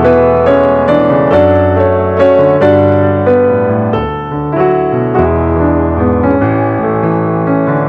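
Background piano music, with notes struck at an even pace over sustained lower chords.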